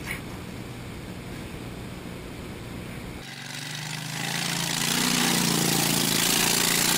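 Low steady rumble, then from about three seconds in a golf cart running with a steady hum, under a loud rushing noise that builds over the last three seconds as the cart lurches down a steep grassy slope.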